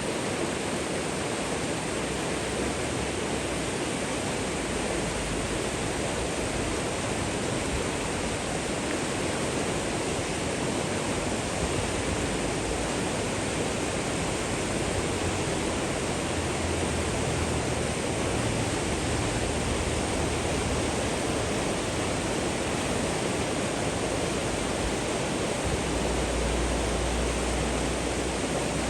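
Steady rushing of flowing water, an even unbroken hiss without pauses, with a low rumble rising near the end.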